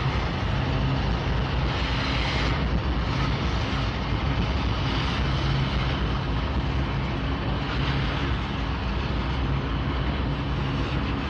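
Diesel freight locomotives running with a steady low engine drone as they pull a freight train across a steel truss bridge.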